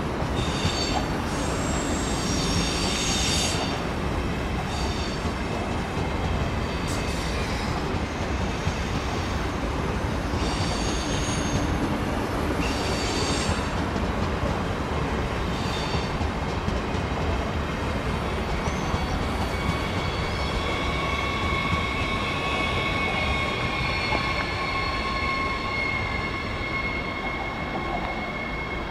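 A train running on the rails with a continuous low rumble. Its wheels squeal in repeated high-pitched bursts over the first half, and a steady high whine follows in the second half.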